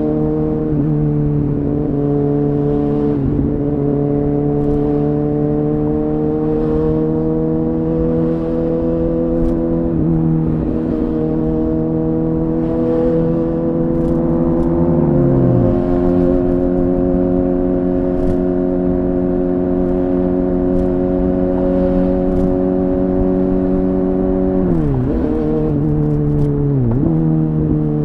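Kawasaki Ninja ZX-6R's inline-four engine running through an Akrapovic exhaust at fairly steady revs while riding, its note slowly climbing. The pitch briefly drops and recovers about halfway through, and twice more near the end.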